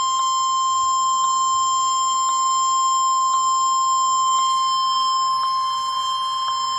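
NOAA Weather Radio / EAS 1050 Hz warning alarm tone: a single loud steady tone, held unbroken, that signals a warning message is about to be read. Faint ticks sound about once a second underneath it.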